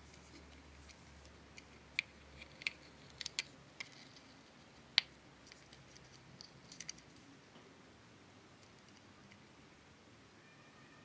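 Light plastic clicks and taps as the clear cover of a small Tamagotchi-shaped plastic candy case is fitted and pressed into place, a dozen or so sharp clicks between about two and seven seconds in, the loudest near five seconds.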